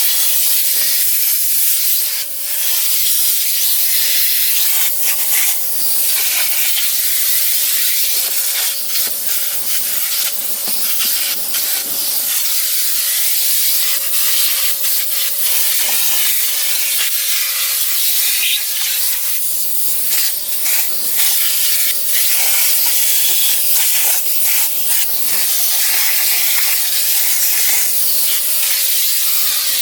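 Electrolux Ergospace canister vacuum running continuously: a loud rush of air with a steady motor whine, and irregular scuffing and changes in the suction as the nozzle works over the car's interior.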